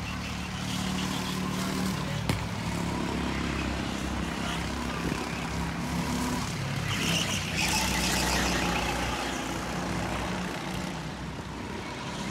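Go-kart engines running as karts lap the track, their engine note shifting up and down as they pass. There is a sharp click about two seconds in.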